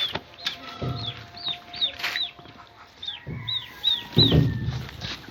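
Farmyard poultry calling: a run of short, high peeps, about two a second. Low rustling noises come in around a second in and again about four seconds in.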